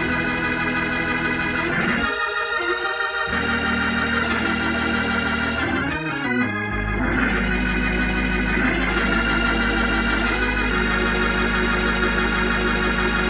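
Organ chords played through a Leslie 122 rotary speaker whose tube amplifier has just been recapped and fitted with new J&J tubes, the treble horn and bass rotor spinning. The held chords change several times, and a deep bass note comes in about halfway through.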